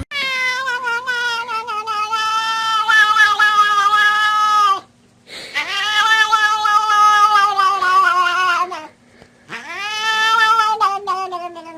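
Cat yowling: three long, drawn-out, wavering calls, each sliding down in pitch as it ends, with short pauses between them.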